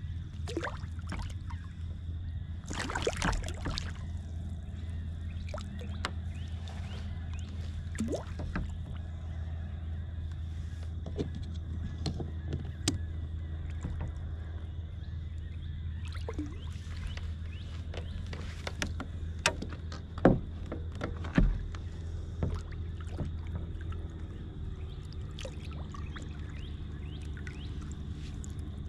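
Scattered knocks, clicks and rattles as a flounder and fishing gear are handled inside a fishing kayak, over a steady low hum. The loudest knocks come about three seconds in and again about two-thirds of the way through.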